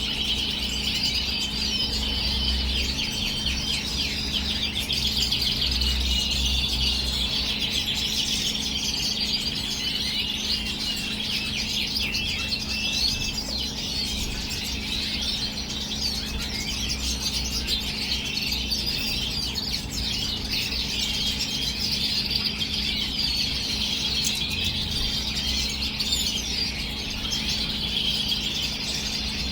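Small finches, European goldfinches and red siskins, twittering and chirping continuously in fast, squeaky trills. A steady low hum runs underneath.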